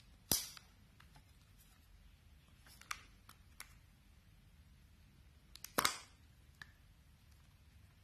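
Sharp plastic clicks and snaps as the SJCAM SJ7 Star's clear waterproof housing is unlatched and pried open to free the camera. There are about five separate clicks, the loudest just after the start and about six seconds in.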